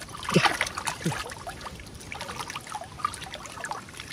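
Muddy water sloshing and splashing in irregular strokes as hands and arms feel through a shallow flooded rice-field channel for fish by hand. Two short low sounds falling in pitch come about half a second and a second in.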